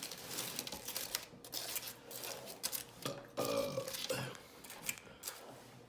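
Close-up eating sounds: rapid wet smacking and clicking from chewing, then a short burp falling in pitch a little past halfway.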